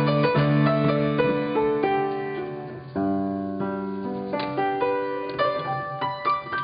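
Piano playing: notes and chords ring out and die away, with a new chord struck about three seconds in, and the music gradually gets quieter toward the end.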